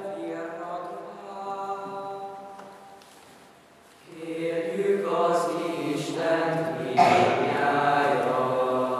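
A boys' choir sings a Gregorian hymn. One phrase tails off about three seconds in, and after a short breath the choir comes back in louder about four seconds in.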